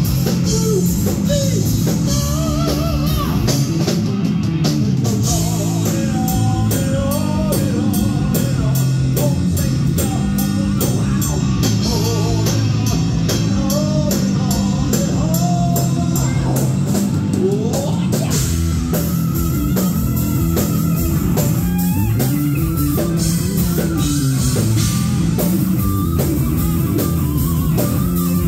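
Live heavy metal band playing loudly: electric bass, electric guitar and drum kit, with a lead line that bends and wavers in pitch over the driving rhythm.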